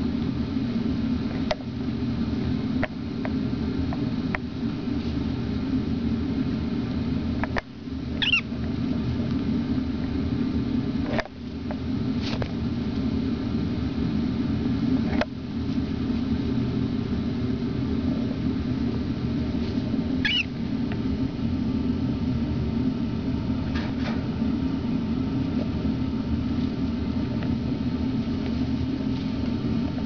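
Air conditioner running with a steady low hum, with a cockatiel giving a short chirp about eight seconds in and another about twenty seconds in.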